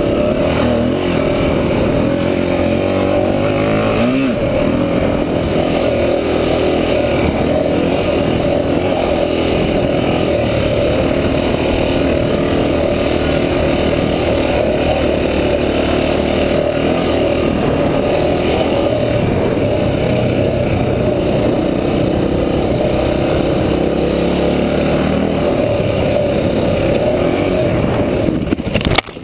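Honda XR400 dirt bike's single-cylinder four-stroke engine running at speed on a trail ride, its note rising and falling with the throttle. Right at the end the sound breaks off abruptly with a sharp knock as the bike crashes.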